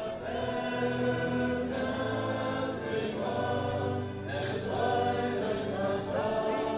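A choir singing a hymn, many voices together holding long notes that change every second or two.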